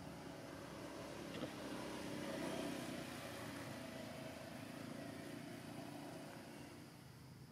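A motor vehicle's engine passing unseen, swelling to its loudest about two and a half seconds in and then slowly fading.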